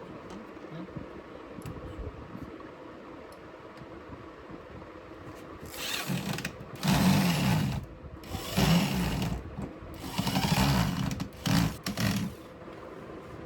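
A small motor-driven power tool runs in short bursts of about a second each, four or five times in a row over the second half, with a brief pause between runs, against a low workshop hum.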